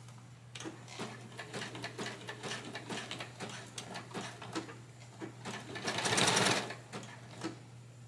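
Electric sewing machine stitching in short runs, a run of quick clicks, with one louder, faster burst of stitching about six seconds in, as a loop of elastic is sewn down onto towel fabric.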